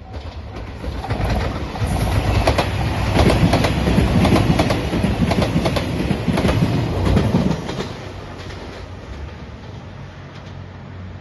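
JR Shikoku 2700 series diesel limited express train passing at speed, its wheels clacking in quick repeated clicks over the rail joints. It is loudest for about six seconds, then drops off sharply about two thirds of the way in as the last car passes.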